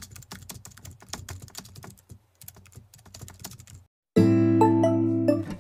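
Typing on a laptop keyboard, a quick irregular run of key clicks for about four seconds. Then music starts abruptly: a held chord with short chiming notes over it.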